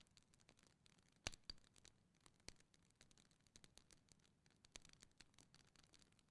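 Faint crackling of a wood fire in a fireplace: scattered small irregular pops and snaps, the sharpest just over a second in.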